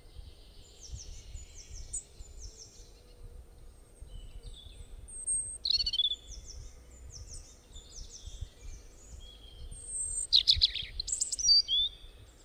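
Several wild birds chirping and calling: runs of short, high, down-slurred chirps, with louder calls about six seconds in and again near the end, over a low background rumble.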